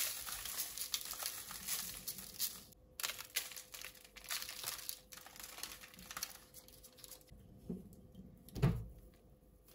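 Dry spices (chilli flakes and herbs) sprinkled onto raw lamb shoulders and baking paper, with the paper crinkling and rustling in short crackly bursts. The rustling is busiest in the first half. A soft low thump comes near the end.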